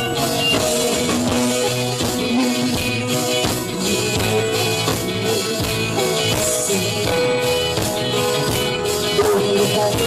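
Live pop-rock band music: strummed acoustic guitar and keyboard over a steady beat.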